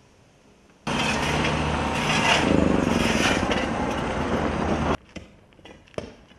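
Engine of roadworks machinery running loudly, starting abruptly about a second in and cutting off sharply about four seconds later, followed by a few sharp knocks.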